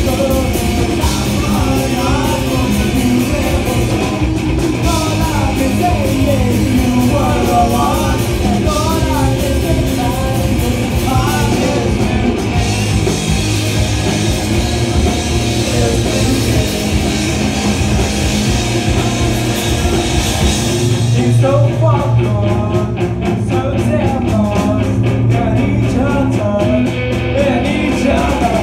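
Pop-punk band playing live: electric guitar, bass guitar and drum kit with a man singing. About three quarters of the way through the cymbals drop away and the guitar, bass and voice carry on in a sparser passage.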